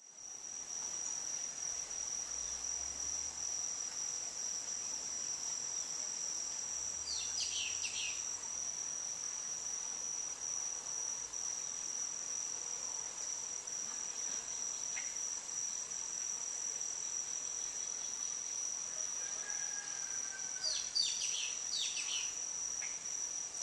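Insects trilling steadily outdoors in one high-pitched, unbroken note, with a few short bird chirps about a third of the way in and again near the end.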